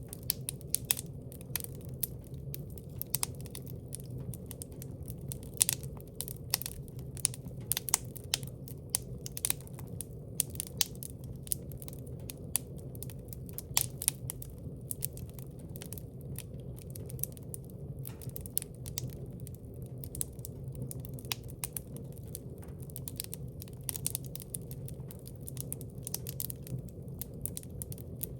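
Wood fire in a fireplace crackling, with irregular sharp pops several times a second over a steady low rumble.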